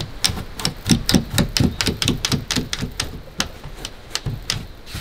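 Rapid run of light plastic clicks and rattles, about four to five a second, from curtain runners moving in an aluminium campervan curtain rail.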